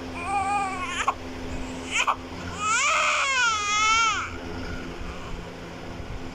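Newborn baby crying: a short wail, two brief sharp cries about two seconds in, then a longer, louder wail that wavers up and down in pitch before dying away.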